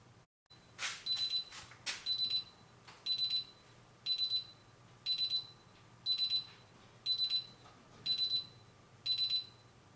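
DSC PK5501 alarm keypad's buzzer sounding the exit-delay beeps after the system is armed: a short high-pitched triple beep repeating about once a second.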